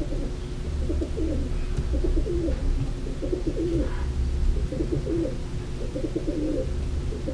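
A dove cooing over and over in repeated low phrases, over a steady low hum.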